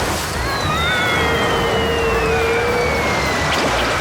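Cartoon sound effects over background music: a long high tone falls slowly over about three seconds, with wavering squeaky tones and a held middle tone beneath it.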